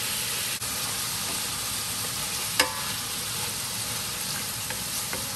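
Shrimp frying in a hot pan, a steady sizzle throughout. About two and a half seconds in there is a single sharp knock with a short ring, loudest of all.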